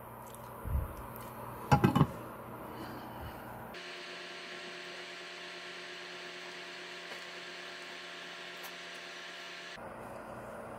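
A low knock, then a brief clatter as a lid is set on a small pot. Then a steady hum made of several level tones, from an induction cooktop heating the covered pot, sped up three times.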